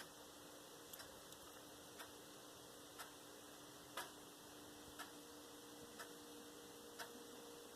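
A clock ticking, one sharp tick each second, over a faint steady hum of room tone.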